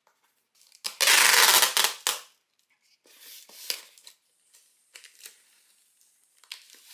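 Ordinary clear packing tape pulled off the roll across a cardboard box: a loud rip lasting about a second, then quieter sounds as the tape is pressed down. Near the end, no-noise clear tape, whose film carries an easy-peel coating, comes off the roll with only faint, short sounds.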